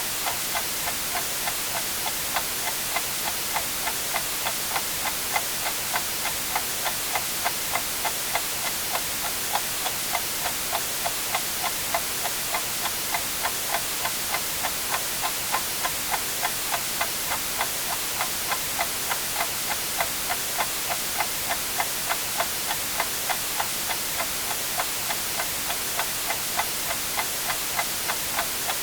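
A clock ticking steadily, about two ticks a second, over a continuous hiss of white noise.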